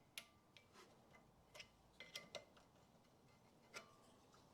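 Faint, light metallic clicks and taps, about eight scattered through, some with a short ring: thin steel brake pad shims being slid and pressed into place on a rear brake caliper carrier.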